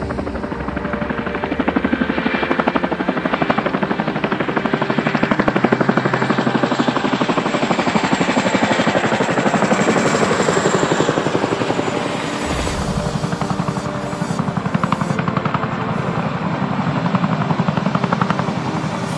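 CH-47 Chinook tandem-rotor helicopters flying low overhead, their rotor blades beating in a fast, steady chop.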